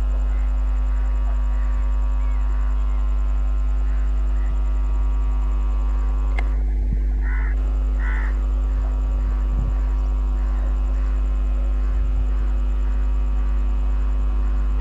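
Steady, loud low drone of an approaching ALCO-type diesel locomotive's engine. Faint chirps repeat through it, with two crow-like caws about seven and eight seconds in. A train horn starts at the very end.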